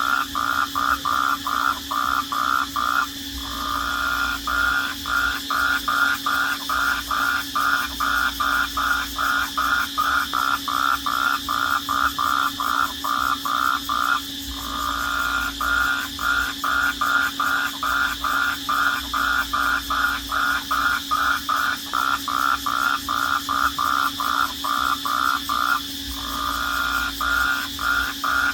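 A night chorus of crickets: a loud, rapid pulsing chirp at about five pulses a second over a steady high-pitched trill. The pulsing smooths into a continuous tone for a moment about three times, roughly every eleven seconds.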